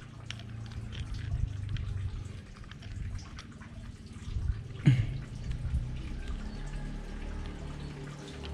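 Handling noise and faint clicks of a Shimano Stella SW 8000PG spinning reel as its handle is screwed into the body, with one sharp knock about five seconds in.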